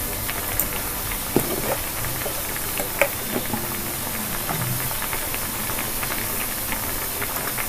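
Pot of sambar boiling on a gas stove: a steady hiss with many small bubble pops. Two sharper clicks come about one and a half and three seconds in.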